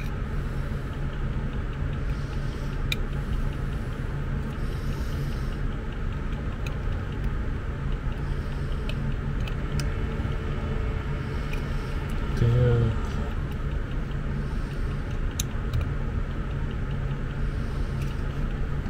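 Steady low background rumble, with a few faint light clicks of a metal pick and tweezers on the bed remote's circuit board and a short voice sound about two-thirds of the way through.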